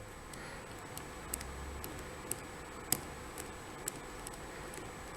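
Lock pick and tension wrench working the pins of a Union 5-pin tumbler lock, giving faint, irregular metallic ticks and clicks about every half second.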